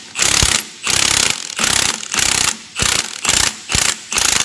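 Impact wrench hammering in repeated short trigger bursts, about two a second, turning the forcing bolt of a harmonic balancer puller to draw the balancer off the LS3 V8's crankshaft snout.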